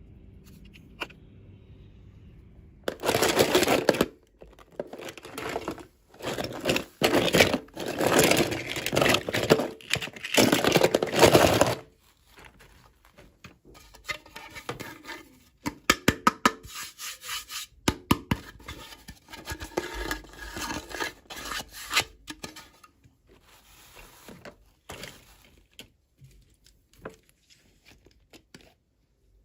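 Toy packaging being torn and crinkled open in a run of loud, noisy bursts, followed by many small clicks and taps as the contents are handled.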